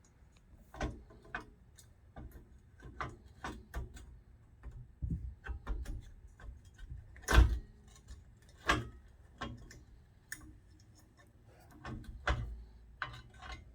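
Irregular metallic clicks and knocks as parts of a vintage steel Schwinn bicycle are taken apart by hand, the loudest clunks about seven and a half and nine seconds in and again near the end; the bearing assembly being opened turns out to have dry grease.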